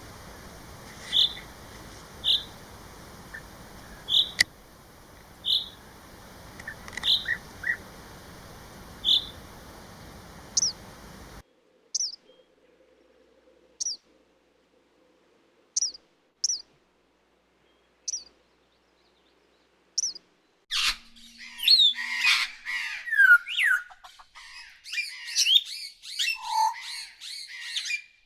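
Birds calling and singing. First a short, high note repeats about every second over a steady hiss. After a sudden cut come a few sparse high chirps. Near the end a fast, varied song full of rising and falling whistles takes over.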